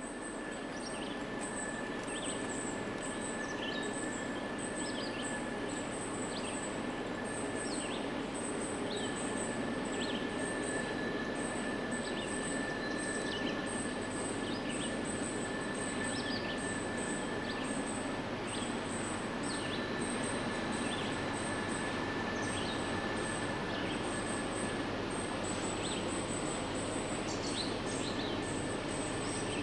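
Heavy Norfolk Southern grain train's diesel locomotives working hard up a grade, a steady rumble, with a steady high-pitched tone that stops about 25 seconds in. Birds chirp throughout.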